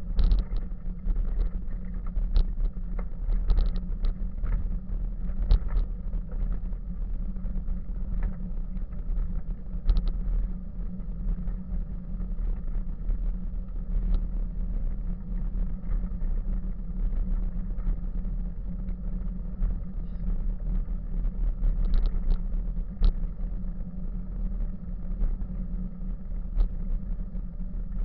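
Steady low rumble of a bicycle rolling along an unpaved forest path, heard through a camera mounted on the bike, with scattered light clicks and rattles from bumps, more of them in the first few seconds and again about 22 seconds in.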